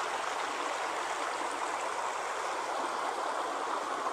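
Water of a small stream running steadily, an even rushing hiss with no breaks.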